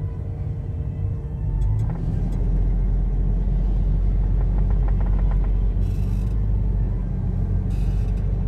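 Low, steady rumble of a car's engine and tyres heard from inside the cabin while driving slowly, growing louder about two seconds in.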